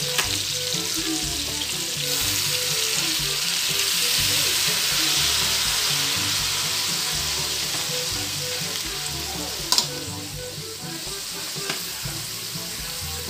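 Long beans and pork sizzling in a hot wok as soy sauce is poured in; the sizzle swells about two seconds in and slowly dies down. A sharp knock comes near the end, with a lighter one shortly after.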